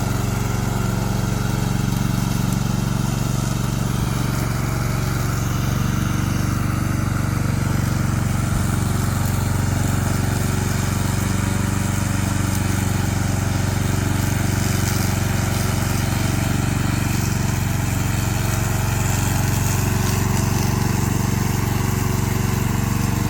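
Yamaha 7.5 hp single-cylinder petrol engine of a remote-control tracked lawn mower running steadily at a constant speed.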